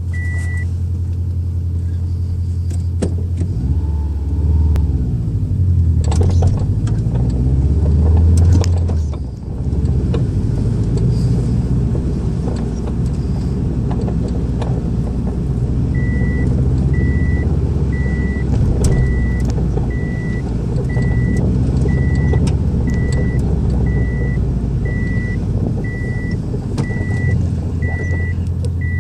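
Car running with a steady low engine hum and scattered sharp clunks and knocks, the noise being traced to its BC Racing coilovers. A repeating warning chime of about three beeps every two seconds starts about halfway in.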